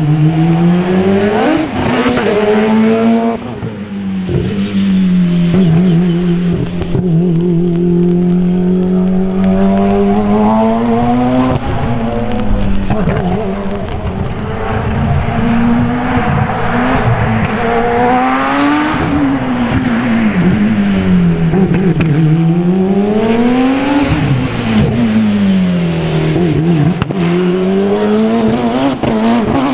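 Open-cockpit sports prototype race car's engine under hard driving, its pitch climbing and dropping again and again as it accelerates, shifts and slows between cones.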